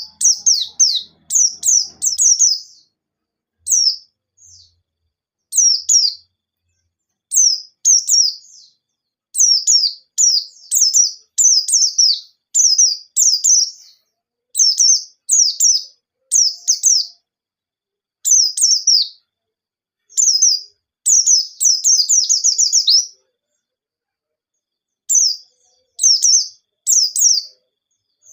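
White-eye (pleci) singing in quick high phrases of short down-slurred chirps, bursts of song broken by short pauses, with a longer two-second pause near the end.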